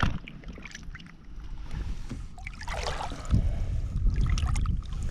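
Lake water splashing and sloshing beside a boat as a hand reaches in for a weak bass floating at the surface, with a few knocks and a swish near the middle. From about a third of the way in, a low rumble of wind or handling on the microphone.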